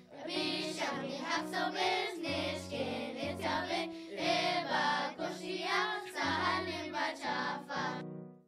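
Children's song in Choctaw: children singing in unison over an instrumental backing. It stops abruptly near the end.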